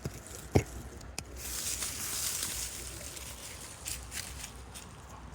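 Hand-digging in soil around a buried metal object: a sharp knock about half a second in, a lighter one just after, then a stretch of scraping and rustling dirt and a few small clicks.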